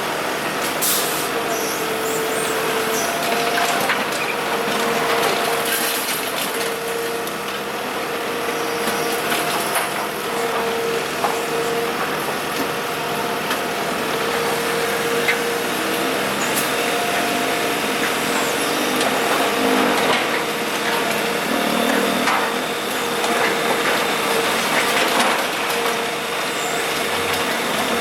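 Kobelco SK125W wheeled hydraulic excavator working: its engine and hydraulics run steadily with a whine that comes and goes, and a few sharp knocks, typical of broken asphalt being handled.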